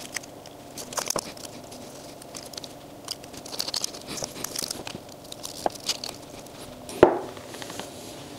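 Hands handling 3D-printed plastic mould pieces on a cutting mat: scattered light clicks and taps of plastic, with crinkly tearing from blue painter's tape being torn and pressed on. A sharp knock about seven seconds in is the loudest sound.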